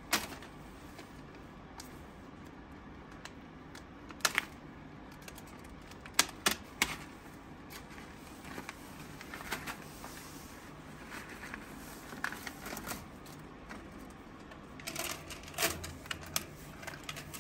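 Scattered clicks and light taps of small hard objects and plastic containers being handled and set down, louder about four, six and fifteen seconds in.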